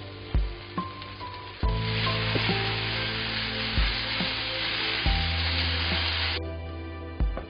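Julienned potato and carrot strips sizzling in olive oil in a frying pan as they are stir-fried. The sizzle comes in about two seconds in and cuts off suddenly near the end. Background music with slow, steady notes plays throughout.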